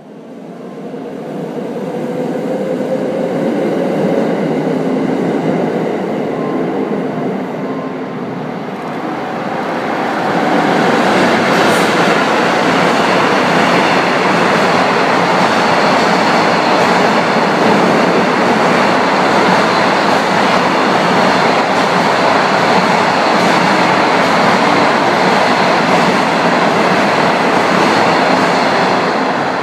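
Container freight train hauled by a JR Freight EF81 electric locomotive passing through a station at speed. The sound builds over the first few seconds as the train approaches, eases slightly, then from about ten seconds in becomes a louder, steady rush of wheels and wagons going by, with one sharp clank near the middle.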